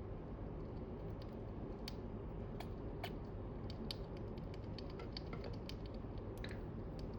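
A pet chipmunk at its snack: small, sharp clicks coming irregularly, a few a second.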